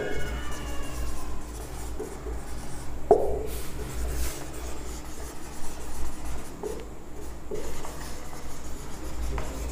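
Marker pen writing on a whiteboard: a series of short, separate strokes, the loudest about three seconds in.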